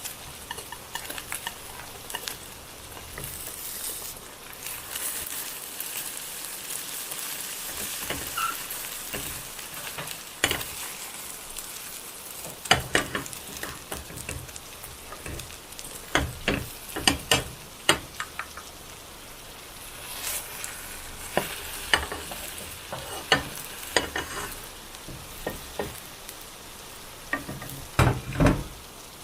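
Food sizzling in a frying pan, with a cooking utensil clicking and knocking against the pan now and then, in a cluster about halfway through and again near the end.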